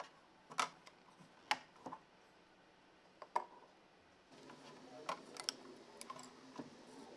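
Sharp clicks and taps, a few spaced about a second apart, from a Prusa i3 MK3's spring steel print sheet being lifted off the magnetic heated bed and handled, then flexed to pop the printed part free.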